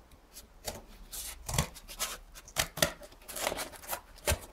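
Scissors cutting through cardboard: a series of short, uneven snips and crunches.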